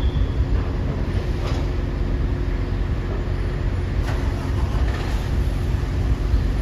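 Steady low rumble of heavy engines, with a few faint knocks.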